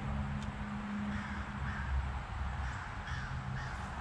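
A bird calling outdoors in a series of short, arched calls, several in a row, over a low steady hum.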